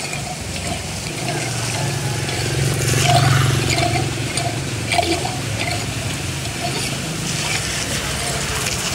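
Floodwater gushing and splashing into a curbside storm-drain grate that is being unclogged, as a hand tool jabs at the debris in it. A low engine-like hum swells about three seconds in.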